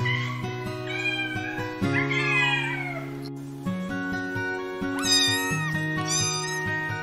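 Cats meowing over background music: several drawn-out, falling meows in the first three seconds, then a black kitten's higher-pitched mews twice near the end.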